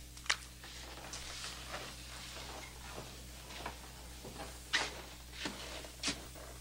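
Footsteps and small knocks in a quiet room over a low steady hum: a sharp click a moment in, then three footfalls about two-thirds of a second apart near the end.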